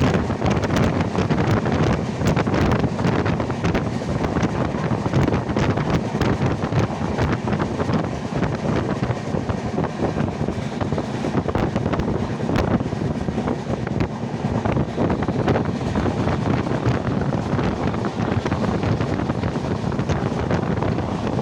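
Express train running at speed, heard from on board with wind buffeting the microphone: a steady rumble with irregular wheel clicks over the rails.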